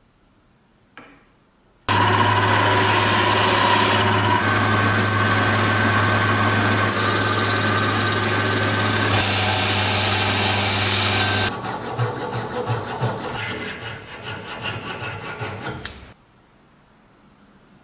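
From about two seconds in, a wood lathe runs with a steady motor hum while a turning tool cuts a spinning wooden dowel. After about nine and a half seconds this gives way to a hand saw cutting through the turned piece in quick back-and-forth strokes, which stop about four seconds later.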